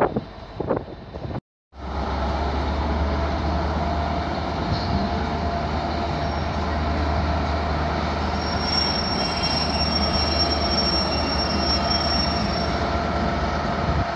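Diesel trains idling at a station platform with a steady, deep engine drone. A thin, high-pitched metal wheel squeal sounds from about halfway through and fades out near the end. Near the start, wind noise cuts off suddenly at an edit and the drone begins.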